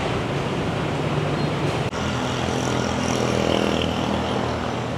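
Traffic noise: a motor vehicle engine running, with steady road hiss, dropping out for an instant about two seconds in.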